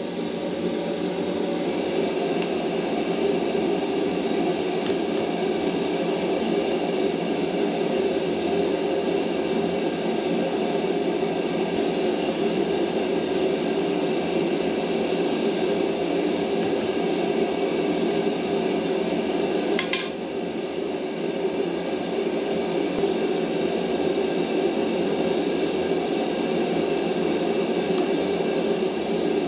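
Steady roar of a gas forge's burners, with a few light metallic clinks of steel being handled and one sharper click about twenty seconds in.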